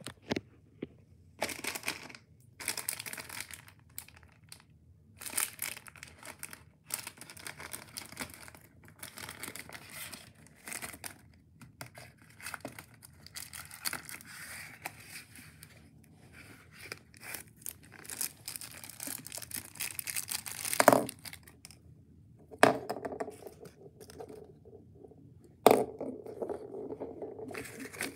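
Plastic toy wrapper being handled, crinkled and torn open by hand in irregular rustling bursts, with a few sharp clicks in the second half.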